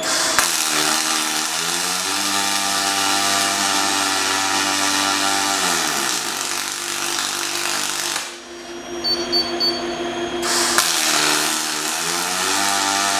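Robotic MIG welding arc hissing and crackling through one 30 mm stitch weld. The arc cuts off a little past eight seconds while the torch skips the 20 mm gap, with a few short high beeps, then strikes again about ten seconds in for the next stitch. A motor hum rises and falls in pitch underneath.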